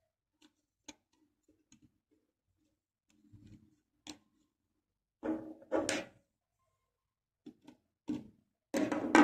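Light clicks and knocks of 3D-printed plastic iris leaves being handled and seated on the plastic base plate, with a louder clatter about five to six seconds in. Music starts just before the end.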